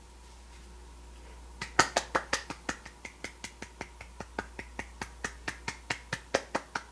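A quick run of sharp clicks or taps, about five a second, starting about a second and a half in, loudest at first.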